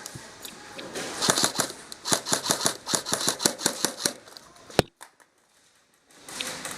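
Airsoft guns firing in rapid strings of sharp cracks for about four seconds, then one loud crack and a brief near-silent pause, with a short burst of noise near the end.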